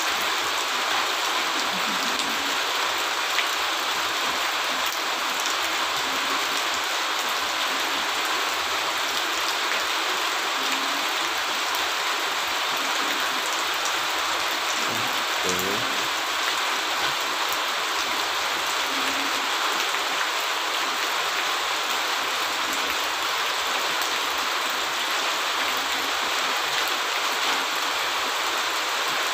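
Steady, even hiss with no change in level, like rain or rushing water.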